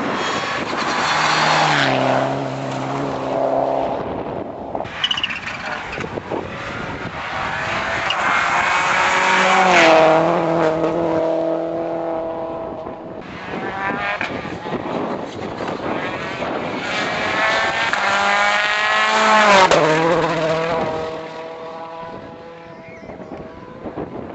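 Rally car engine at full throttle, revving up and down through gear changes as it passes close. It is loudest about ten seconds in and again near twenty seconds, then fades.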